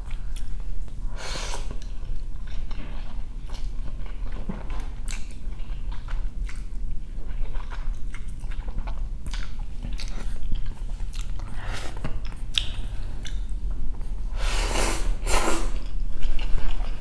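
Close-miked eating sounds: slurping ramen noodles in broth and chewing with wet mouth clicks and smacks. Louder slurps come about a second in and twice near the end.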